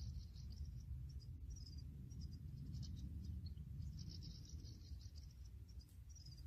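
Goldfinches twittering faintly in scattered clusters of short, high-pitched chirps, over a steady low rumble.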